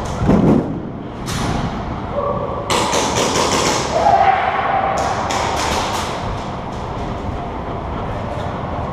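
Airsoft electric guns firing in rapid bursts of sharp cracks, first about three seconds in and again around five to six seconds in, with a dull thud near the start.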